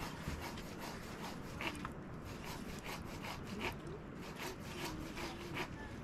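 Rhythmic rubbing strokes on wood, about two a second, with a faint wavering tone in the second half.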